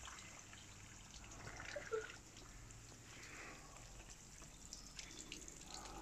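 Faint trickling and dripping of water overflowing from a wooden barrel cold plunge tub and running down concrete steps, with one brief faint squeak about two seconds in.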